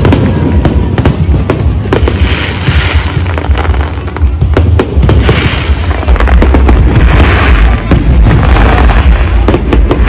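Aerial fireworks display: a rapid run of shells bursting with sharp bangs, and waves of crackling from the glittering bursts every few seconds.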